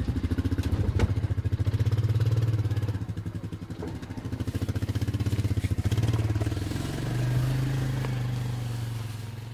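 Quad ATV engine running with a fast pulsing exhaust note as the machine is backed down off a pickup bed, the throttle opened and eased so it swells twice and dips between; near the end it settles into a steadier, slightly higher note.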